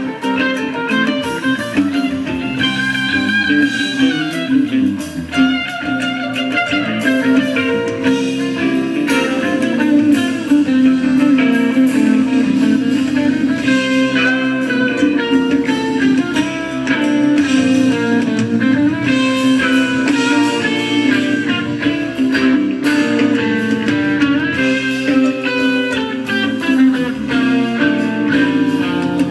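Live amplified rock band playing an extended instrumental jam, with guitar lines over a steady bass and drums.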